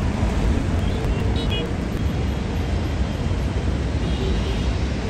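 Steady low rumble of a jet airliner's engines, with a few faint high chirps about one and a half seconds in.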